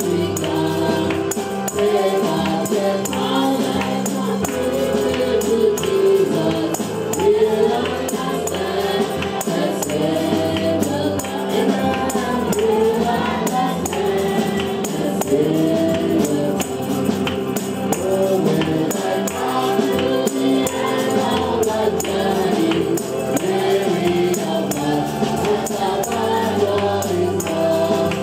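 Live gospel praise-and-worship song: a man sings into a handheld microphone over a steady instrumental accompaniment with tambourine, other voices singing along.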